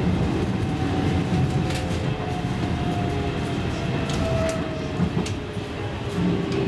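Helsinki Metro M100 train running along the track, heard from inside the passenger car: a steady rumble of wheels and running gear, with a faint whine slowly falling in pitch as the train slows for a station, and a few sharp clicks from the wheels.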